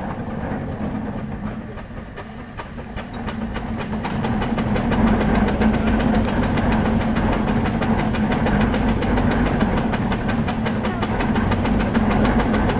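Steam donkey (steam-powered logging winch) running under steam to haul logs in on the main line, with a hiss and a steady engine hum. It grows louder about four seconds in, then holds steady as the engine works.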